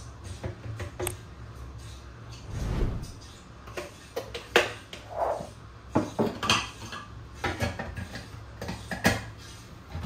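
Scattered clinks and knocks of kitchen containers being handled and set down, over faint steady background music.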